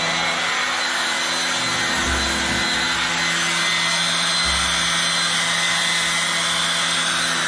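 Vacuum cleaner running steadily on carpet, its motor giving a constant whine, with a few low bumps.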